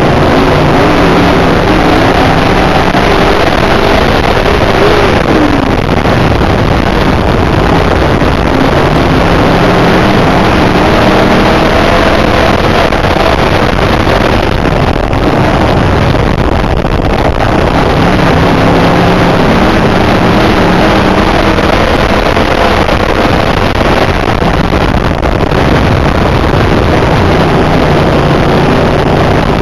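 IMCA dirt modified race car's V8 engine heard from inside the car at racing speed, loud and continuous, its pitch rising and falling as the throttle is worked.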